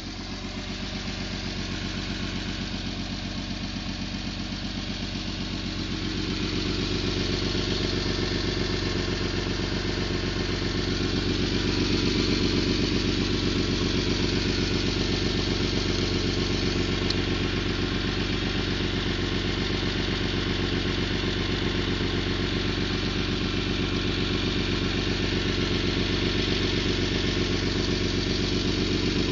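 Toyota 3F-E 4.0-litre inline-six engine idling with rapid, even exhaust pulses, growing louder over the first several seconds and then steady. It carries a loud exhaust leak at the left-most catalytic converter by the O2 sensor.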